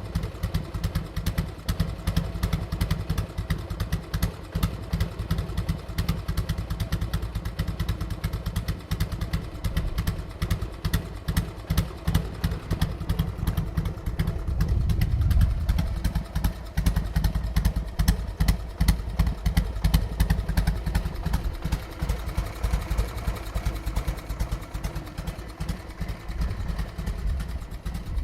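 2001 Harley-Davidson Sportster 883's air-cooled V-twin idling through a Screamin' Eagle Pro-Pipe 2-into-1 exhaust, a steady fast train of low exhaust pulses as it warms up after a cold start. The beat swells briefly about halfway through, then settles back to idle.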